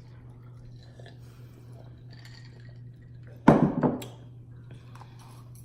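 Faint clinks and taps of dishes and glass at a table over a steady low hum, with one loud, short noisy sound lasting about half a second, about three and a half seconds in.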